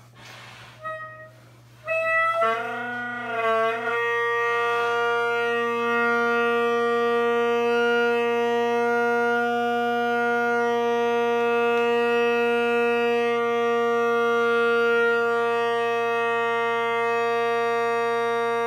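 Tenor drone of a 3D-printed Great Highland bagpipe, chanter stock corked, struck in after a couple of breaths into the bag. Its pitch wavers for about two seconds as the reed settles, then holds a steady drone on A while it is being tuned.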